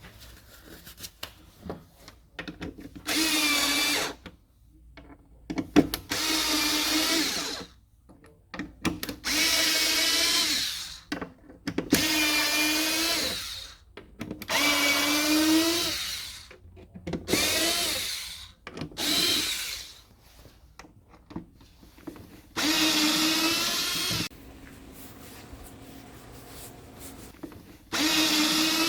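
Cordless drill/driver running in about nine short bursts of one to two seconds each, with a whining pitch, as screws are turned, and small clicks and handling noises between the bursts.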